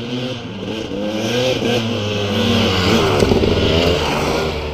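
Off-road dirt bike engine revving as the bike rides up the trail toward the listener, growing louder to a peak about three to four seconds in, its pitch rising and falling with the throttle.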